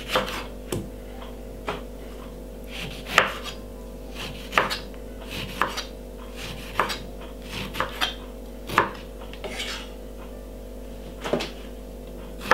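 Kitchen knife cutting and peeling a lemon on a wooden chopping board: irregular, sharp knocks of the blade striking the board, over a steady low hum.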